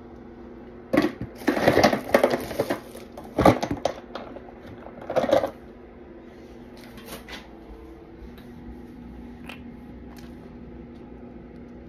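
Nail polish bottles clattering and clinking as they are picked through and handled, in several bursts over the first half, then only a faint steady hum.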